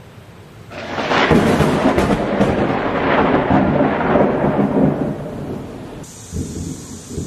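Thunder: a long rolling rumble that sets in about a second in, with a few sharp cracks near its start, and dies down after about five seconds.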